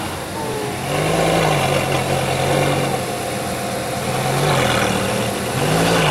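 Lamborghini Gallardo V10 idling through its quad exhaust, given about three light throttle blips that briefly raise the pitch.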